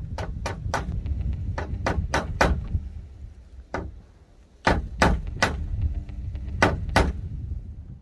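Sharp wooden knocks at a plank outhouse door, in short quick runs of two to four, as something is tapped against the door's edge. A steady low rumble of wind on the microphone runs under them and dies away near the end.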